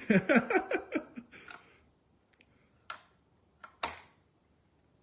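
A woman laughs briefly. Then come four sharp metallic clicks, the last the loudest, from the stiff lever and action of a break-action gun being worked by hand.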